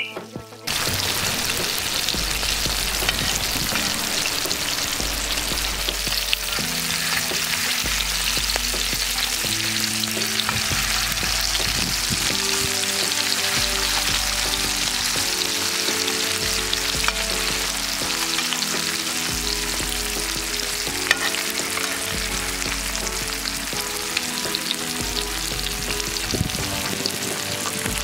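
Masala-coated fish pieces shallow-frying in hot oil on a flat iron tawa: a steady, loud sizzle of bubbling oil, with the odd click of a metal spatula against the pan.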